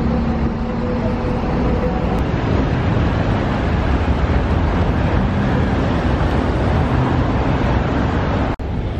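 City street traffic noise: cars and engines running past in a steady wash of sound, with a low engine hum in the first couple of seconds. It cuts out abruptly for an instant near the end.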